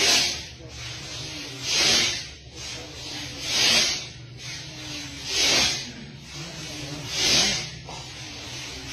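A crowd of men chanting zikr in unison with forceful breaths: a loud rasping hiss about every two seconds, five times, with a faint low hum of voices between.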